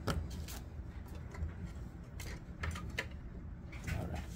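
Handling noises from work on a part: a few light clicks and rustles over a steady low hum.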